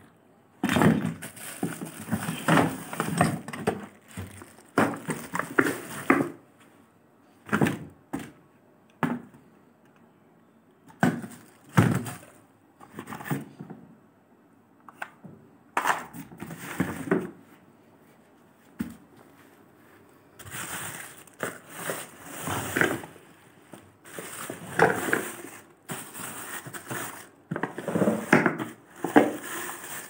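Clear plastic wrapping crinkling and rustling, with cardboard scuffs and dull thumps of hard plastic parts, as a boxed canister vacuum cleaner, its hose and floor nozzle are handled and unpacked. The noises come in irregular bursts with short quiet gaps.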